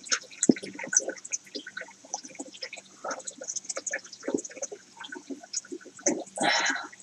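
Water trickling and splashing in a fish tank, with many small irregular splashes and a louder splash about six seconds in, over a faint steady low hum.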